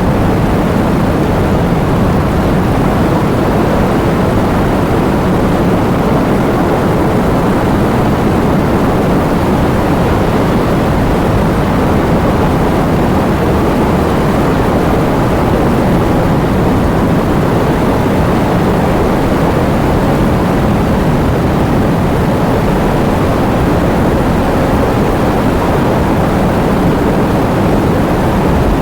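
Heavy rain falling steadily, a dense, even hiss with a strong low rumble.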